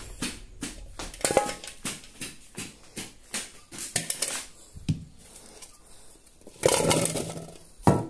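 Kitchen containers and a small aluminium pot clattering and knocking as they are handled on a counter, with a short metallic ring about a second in and a longer rustle around seven seconds.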